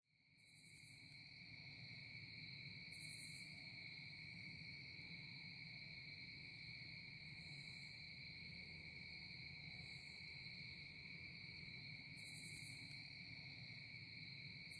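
Faint, steady insect chorus in autumn woods: a continuous high buzzing trill, with short, higher-pitched bursts from other insects every few seconds.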